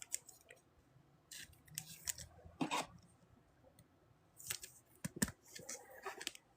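Trading cards and pack wrappers handled at a table: scattered light clicks, snips and scrapes, the loudest about two and a half seconds in and around five seconds in.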